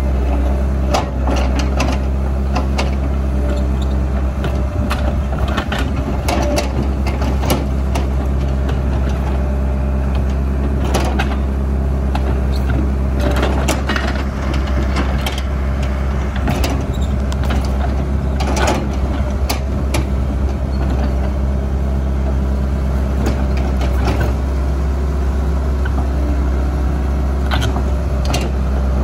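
Caterpillar excavator's diesel engine running steadily under hydraulic load, with scattered sharp metal clanks and knocks from the loose steel track and undercarriage as the machine is worked to refit the thrown track.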